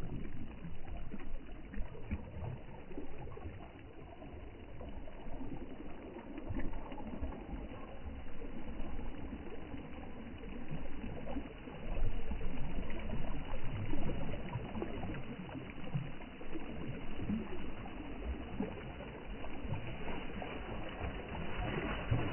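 Sea waves washing in, a continuous rush of water that swells and eases, loudest about halfway through.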